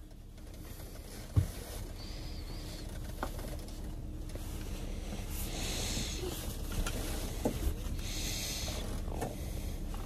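Car seat belt being handled by a small child: the webbing and a puffy nylon jacket rustle in two stretches, with a knock about a second and a half in and a couple of light clicks from the belt hardware later on.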